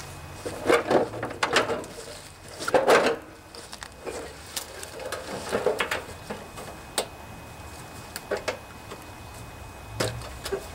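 Handling noises on a riding mower's plastic hood and frame: a few scraping rustles, the loudest about three seconds in, then several sharp separate clicks and knocks.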